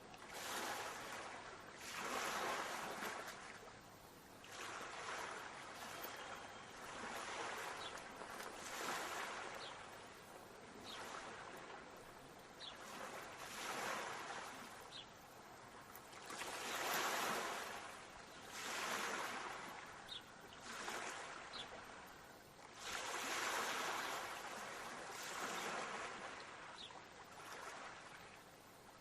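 Sea waves washing onto a shore, each swell of surf rising and falling every two to three seconds.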